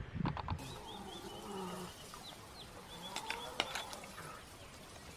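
Faint high chirping and twittering calls of African wild dogs, coming in short runs, with a few low thumps near the start.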